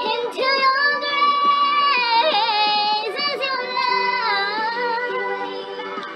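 A woman singing a ballad over a backing track, holding long high notes with vibrato.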